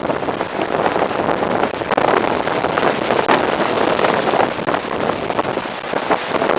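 Storm wind buffeting the microphone over heavy surf breaking against the rock armour of a sea wall; a loud, rough, continuous rush with constant crackling gusts.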